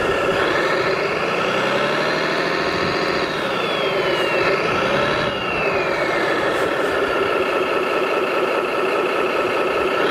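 Radio-controlled MAN 8x8 tipper truck running, its engine sound rising and falling in pitch as it creeps through shallow water, with a high whine that falls in pitch a few times.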